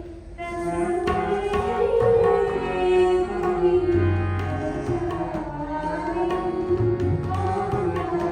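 Live Pakistani classical music: tabla strokes, with deep bass-drum booms, under sustained harmonium tones and a melody that slides in pitch.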